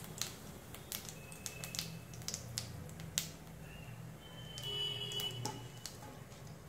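Cumin seeds and bay leaves frying in hot oil in a kadhai: scattered small crackles and pops over a steady low hum.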